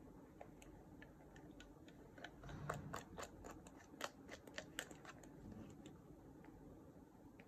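Scattered small sharp clicks of a plastic computer mouse being pawed and bitten by a cat, bunched together between about two and five seconds in; otherwise near silence.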